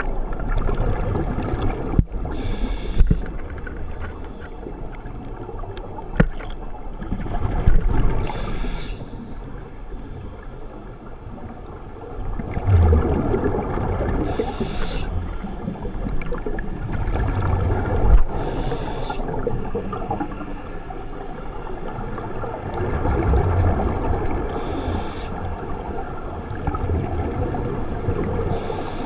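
Scuba regulator breathing underwater: a short hissing inhalation every four to six seconds, with bubbling exhalations swelling between them.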